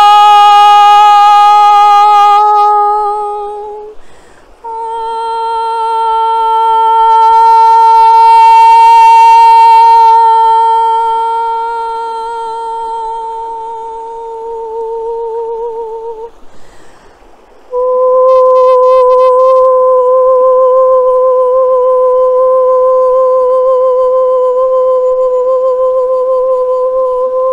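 A woman's voice toning in three long held notes, each a step higher than the one before, with a slight waver and short breaks for breath between them.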